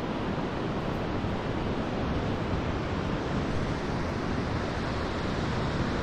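Steady wind rushing and buffeting the microphone, an even hiss with a flickering low rumble underneath.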